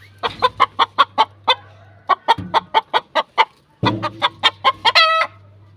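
Aseel rooster clucking in quick runs of about five clucks a second, three runs with short pauses, ending in a brief higher, drawn-out squawk near the end.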